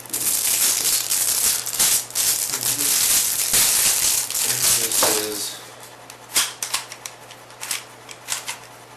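Plastic clicking and rattling of a DIY Rubik's cube being turned. The clicks come thick and fast for about five seconds, then as separate clicks. The cube is tight and locks up.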